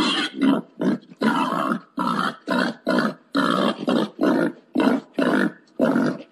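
Wild boar grunting in a quick, even series of short, rough grunts, about two or three a second: a boar's mating call.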